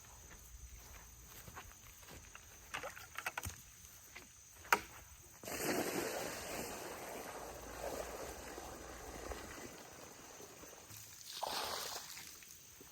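Pigs eating water-soaked feed, with wet sloshing and smacking and scattered clicks, then a sharp knock. About halfway through, a louder stretch of rustling noise starts suddenly and lasts a few seconds, with another swell near the end.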